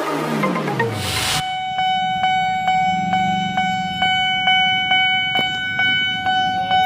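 The tail of an electronic intro jingle, a falling sweep, then a railway level crossing's electronic warning alarm (the barrier maker's factory alarm, not a bell). It sounds a steady high ringing tone pulsed about two and a half times a second while the crossing barriers come down, signalling an approaching train.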